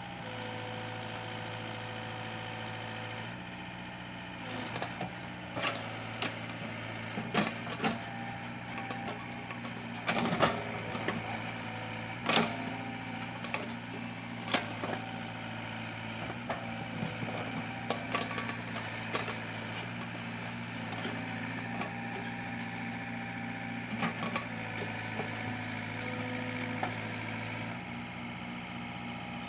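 Sumitomo mini excavator's diesel engine running steadily under hydraulic load while it digs at a eucalyptus stump, with scattered sharp knocks and cracks from the bucket and wood, the loudest a few seconds into the middle.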